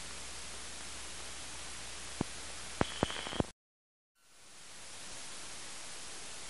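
Steady hiss from old videotape playback with no programme sound. A little past two seconds in come a few sharp clicks and a short high tone, then the sound cuts out completely for about half a second before the hiss fades back in.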